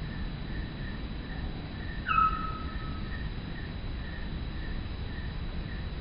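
A songbird whistling soft, short notes over and over, about two a second. About two seconds in comes one louder call that slides down in pitch over about a second.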